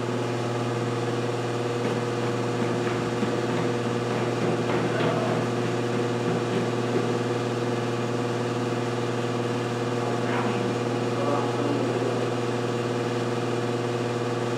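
A loud, steady mechanical hum with one low, unchanging tone and fainter tones above it, a few faint knocks along the way.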